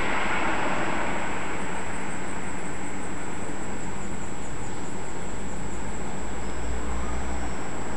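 Steady rushing background noise like street traffic, with a run of faint high chirps in the middle and a low rumble near the end.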